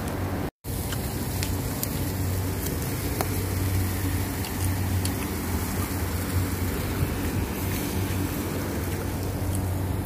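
Steady low hum and rushing noise with faint scattered crackles from pork skewers grilling over charcoal, cut by a brief dropout about half a second in.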